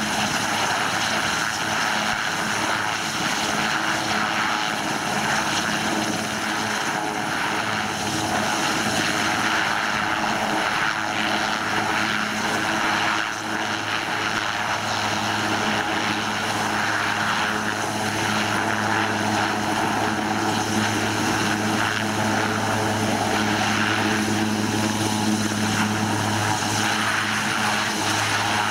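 French Army Puma-type twin-turbine military helicopter running steadily close by: a constant turbine whine over the deep drone of the main rotor.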